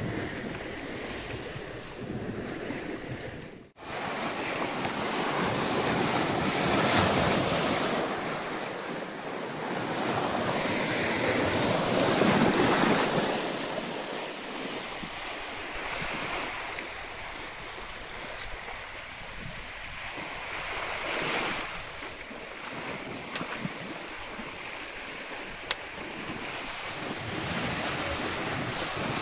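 Sea water rushing and waves washing along the hull of a yacht under way, swelling and easing every few seconds, with wind buffeting the microphone. A brief dropout about four seconds in.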